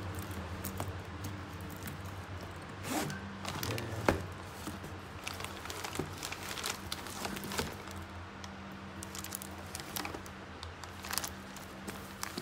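Clear plastic wrapping crinkling as a bag is handled, with many scattered small clicks and rustles over a low steady hum.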